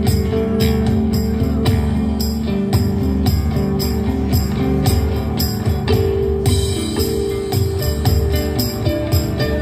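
Live acoustic band music in an ambient, flamenco-tinged style: sustained low and mid notes under a steady beat of sharp, jingly percussion strokes.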